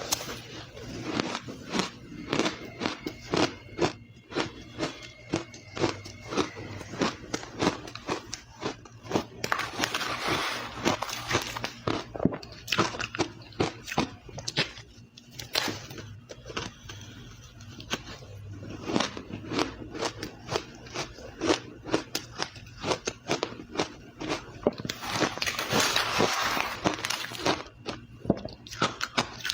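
Ice being bitten and chewed close to the microphone: a fast, uneven run of sharp crunches, with denser grinding spells about ten seconds in and again a few seconds before the end.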